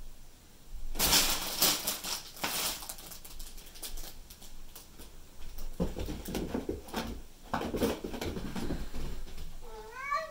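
A cat scrambling and running on carpet: bursts of rustling and scratching about a second in, then scattered soft paw thumps and scuffles, and a short rising meow near the end.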